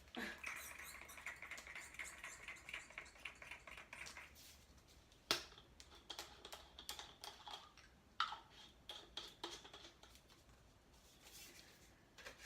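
A comb drawn through hair: faint, rapid scratchy ticking for the first few seconds, then scattered light clicks and taps, the sharpest about five seconds in.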